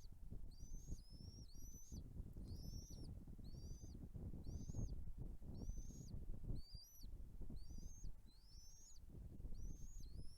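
Nest chicks calling over and over in short, high-pitched chirps, each rising then levelling off, about one or two a second, with a low rumbling noise underneath.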